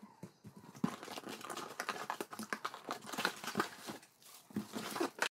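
Packaging being opened by hand, cardboard and plastic wrap crinkling and rustling: a dense run of irregular crackles that cuts off abruptly near the end.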